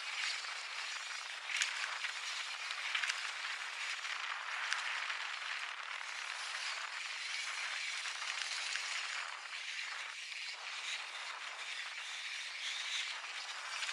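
Mountain bike rolling fast down a dirt trail: a steady rush of tyre and wind noise with the bike rattling, and a few sharp knocks over bumps in the first half.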